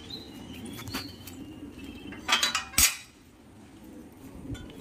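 Clinks and clanks of metal on metal from an iron gate and its sliding bolt latch being handled. There are a couple of light clicks about a second in, then a louder cluster of clanks about two and a half seconds in.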